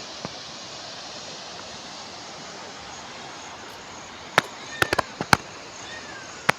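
A steady rushing noise, then a quick run of about six sharp cracks or pops over the last two seconds.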